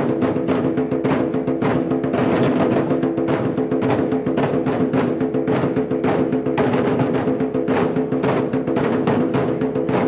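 An ensemble of large lion dance festival drums (trống hội) beaten together with sticks in a fast, continuous stream of strokes.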